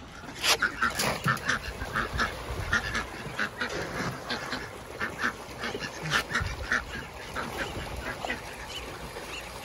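A flock of ducks quacking over and over in short, quick calls, several a second, as they crowd in for food thrown into the water.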